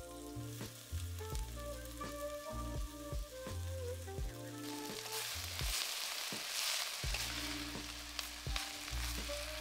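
Fresh moringa leaves sizzling in hot oil in a clay pot while a wooden spatula stirs them. The sizzle swells loud about halfway through and eases near the end, over background music with a steady beat.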